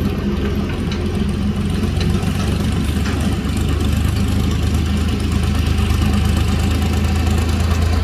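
Diesel engine of an Indo Farm tractor towing a trailer, running steadily and growing louder as it drives closer.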